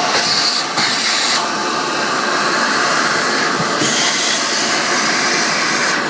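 Vacuum cleaner motor running steadily with a loud rushing hiss, used on a washing machine pump that is thought to be clogged. The hiss changes tone abruptly around a second and a half in and again near four seconds as the airflow shifts.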